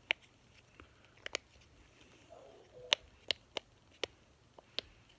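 Mini pop it fidget toy being pressed, its silicone bubbles popping in a string of sharp, irregular clicks, about eight of them.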